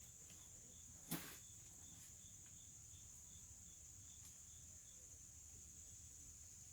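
Faint outdoor insect drone: a steady high hum with a fainter chirp pulsing a few times a second. A single sharp knock comes about a second in.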